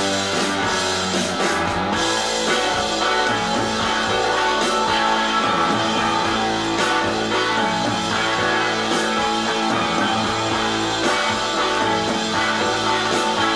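Classic rock music with electric guitar and drums, played from a vinyl LP on a turntable.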